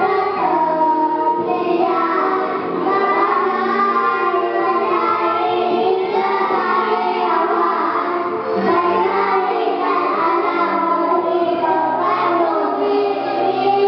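Group of five-year-old children singing a song together over backing music.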